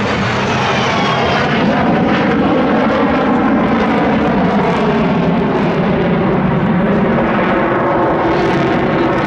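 Fixed-wing aircraft engine running loudly and steadily, a dense drone with a whine that falls slightly in pitch in the first second.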